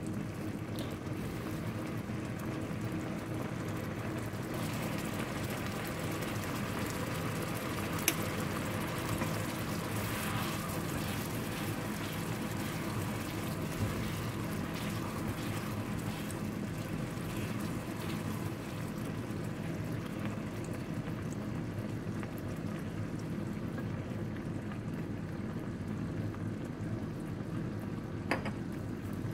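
Kho quẹt sauce of fish sauce, sugar and dried shrimp bubbling steadily in a pan as it boils down, stirred with a wooden spoon. A couple of sharp taps: one about eight seconds in, one near the end.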